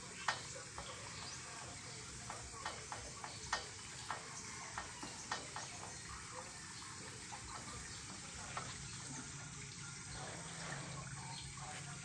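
Water running and splashing from a galvanized iron water line whose rust-eaten joint has snapped at the elbow, with sharp ticks scattered through the first half.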